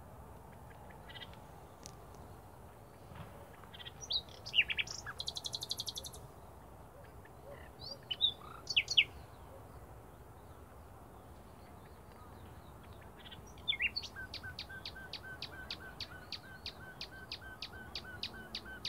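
Small songbirds singing: scattered high chirps and a short buzzy trill, then from about three-quarters of the way in one bird repeats a quick note about five times a second.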